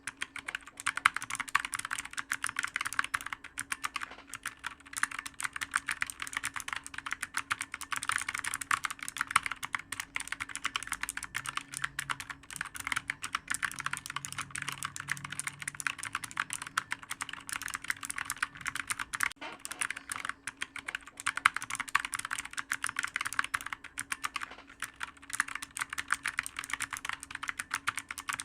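Continuous fast typing on a clicky computer keyboard: a dense, uneven stream of key clicks with no pauses.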